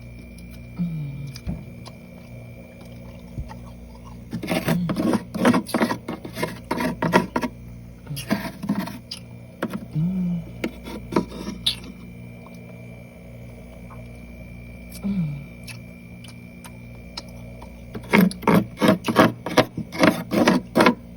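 Close-miked chewing of soft freezer frost: several bursts of quick, wet crunches and mouth smacks with pauses between them.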